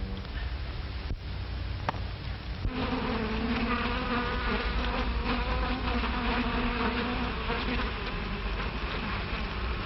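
A bee buzzing: a steady drone with a clear pitch that starts about three seconds in and fades near the end, over a constant low hum and hiss.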